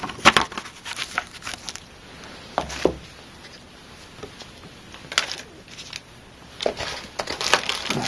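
Hands handling boxed accessories: rustling and crinkling of paper and plastic packaging with scattered light clicks and taps, in short spells with quieter gaps between, busier near the end.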